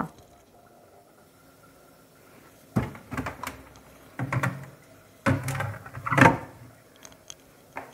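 A few clunks and knocks, starting about three seconds in, as the freezer compartment of a refrigerator is opened and a lidded plastic food container is set onto its shelf.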